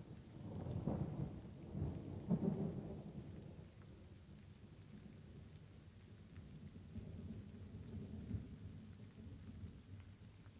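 Thunder over light rain. A low rumble swells about half a second in, peaks around two to three seconds and dies away by about four seconds. A weaker rumble follows near the end, while light rain patters steadily throughout.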